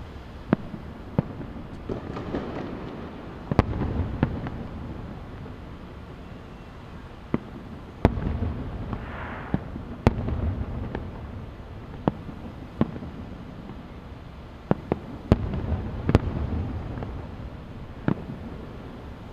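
Aerial fireworks shells bursting in the sky: a sharp bang every second or two at an uneven pace, each trailed by a low rumble.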